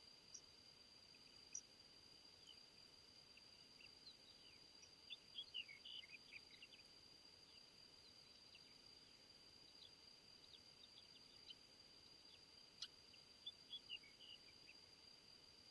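Faint birds chirping in short, scattered calls, bunched a little after five seconds in and again near the end, over a steady high-pitched drone.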